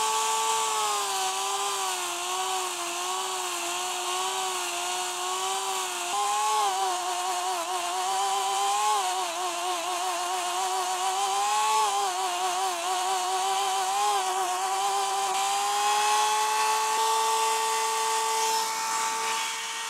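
High-speed die grinder whining as its bit grinds away the inner lip of a rubber motorcycle intake hose; the pitch sags and wavers while it cuts. Near the end it runs free at a higher, steady pitch, then spins down.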